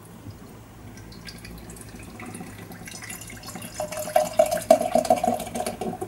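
Beer poured from an aluminium can into a glass, gurgling and splashing, getting louder over the last couple of seconds as the glass fills, with a steady note joining in near the end.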